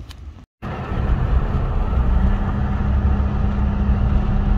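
Brightline passenger train passing close by: a loud, steady rumble of wheels and running gear on the rails, with a steady low hum joining about two seconds in. The sound cuts out for an instant about half a second in, at an edit.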